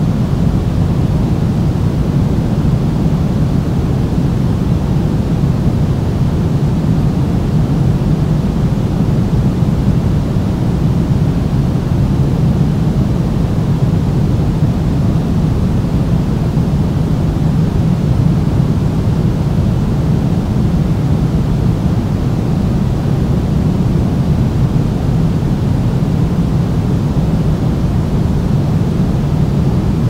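Steady pink noise: an even, unbroken rush weighted toward the deep end, with no changes.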